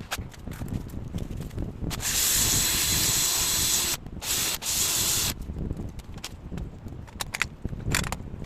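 A loud hissing spray, held for about two seconds, then two shorter bursts, over a low rumble with scattered clicks.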